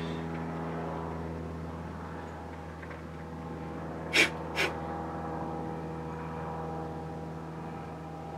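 Two short, sharp puffs of breath about half a second apart, over a steady low hum.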